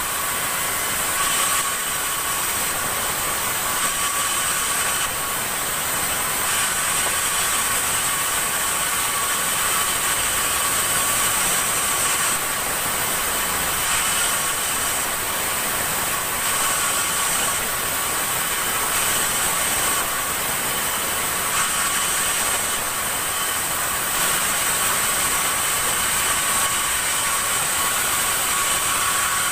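Sawmill saw running steadily, a high whine over a hiss that holds unchanged throughout.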